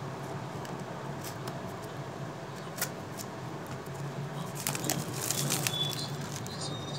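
Packaging being handled as a new phone is worked out of its snug box: scattered crinkles and clicks of plastic and cardboard, busiest about five seconds in, over a low steady hum.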